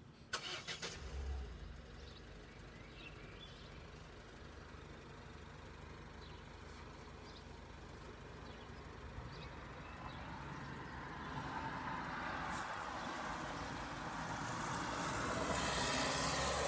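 A car going by, its noise swelling over the second half and loudest near the end. A few short knocks come about a second in.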